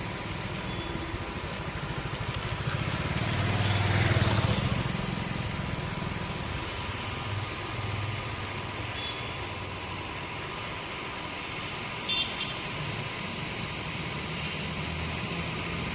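An engine-driven HTP sprayer pump running steadily, with the hiss of a high-pressure spray jet from an aluminium spray gun; the sound swells for a moment about four seconds in.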